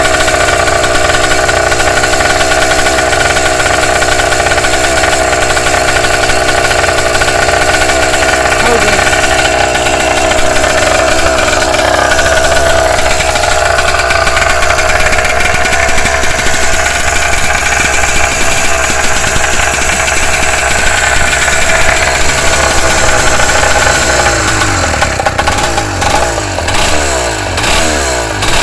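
Engine on its first runs after being put together, running loudly and steadily while being broken in, with an exhaust leak at a gasket that was left out. Near the end its revs start to rise and fall.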